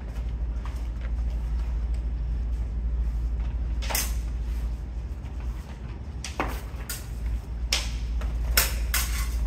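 Steel sparring swords clashing: several sharp metallic clanks, one about four seconds in and a quicker cluster in the last three seconds, over a steady low rumble.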